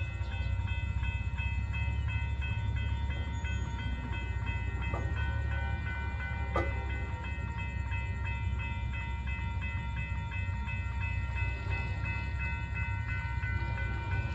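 Railroad grade-crossing warning bell ringing steadily and repetitively over a low steady rumble.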